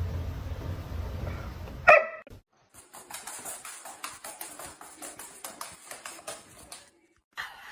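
A dog gives one short, loud bark about two seconds in. It is followed by a run of quick, irregular clicks and taps.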